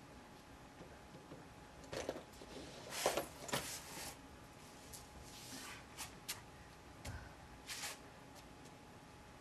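Scattered soft rustles and shuffles of clothing and bodies moving on a stage floor as a performer gets up from kneeling, with a soft thump about seven seconds in.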